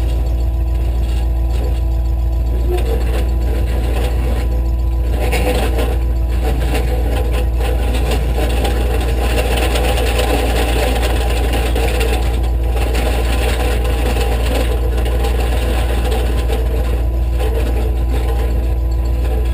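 An engine running steadily, with a constant heavy low rumble and some added noise in the middle of the stretch.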